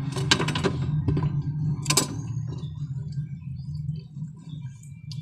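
Crisp vegetable fritter (ukoy) and its plate handled close to the microphone: a few sharp crackling clatters in the first second and a loud one about two seconds in, over a steady low hum.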